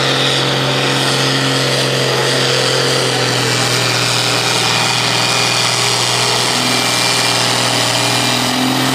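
Pulling tractor's diesel engine running flat out at full load, a loud, steady, unchanging drone as it drags a weight-transfer sled down the track.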